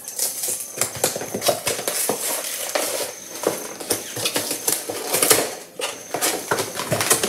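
A cardboard cake-mix box and the packet inside it being struggled open: continuous crackling and rustling of cardboard and wrapper with many sharp clicks and crinkles.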